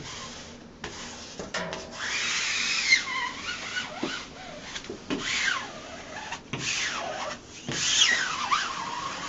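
Squeegee dragged in long strokes over a peel-and-stick wall mural to press the overlapping seam flat. It rubs and squeaks, sliding up and down in pitch, with about four passes from around two seconds in.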